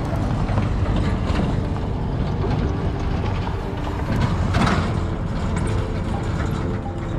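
Road vehicle noise, a dense rumble with a louder swell near the middle, over faint background music.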